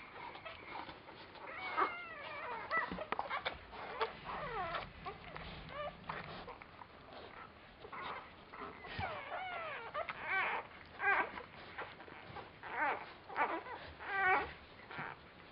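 Newborn border collie puppies squeaking and whimpering while nursing: many short, high, wavering calls overlapping one another, coming more thickly and loudly in the second half.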